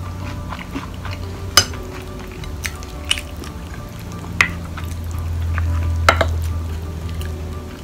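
A spoon scraping and clicking against a plate as it scoops curry and rice, with a few sharp clicks spread through.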